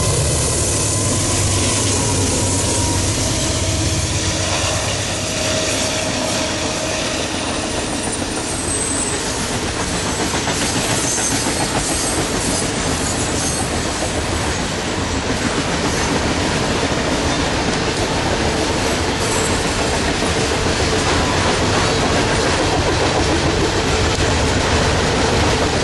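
Norfolk Southern coal train passing close by: the lead diesel locomotive goes past at the start, then a long run of coal hopper cars rolls by with a steady rumble of wheels on the rails. A few faint, thin wheel squeals come in about a third of the way through.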